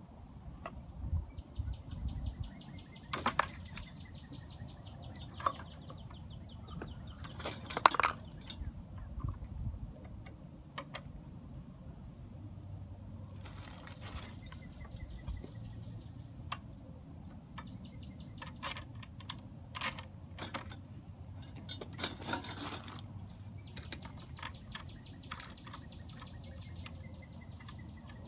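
Parts of an electric tiller being handled and fitted by hand: scattered clicks, knocks and light clatter of plastic and metal pieces and a bag of small hardware, with a few short rustles.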